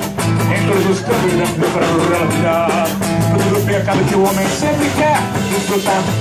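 Live band music: an acoustic guitar and an electric bass playing over a steady beat.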